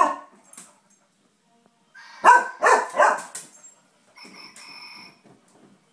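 Dog barking: one bark at the start, then three quick barks about two seconds in. Near the end comes a quieter high, steady electronic chirping from a motorized ZhuZhu Pets toy hamster.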